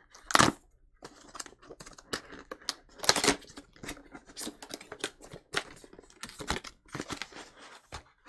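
Cardboard retail box being opened and its contents slid out: irregular scrapes, rustles and taps of cardboard on cardboard, the loudest about half a second and three seconds in.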